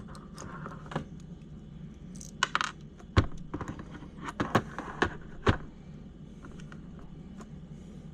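Clicks, taps and knocks of small plastic and metal RC-car parts being handled and fitted together by hand. The loudest are a handful of sharp taps bunched a few seconds in, over a low steady hum.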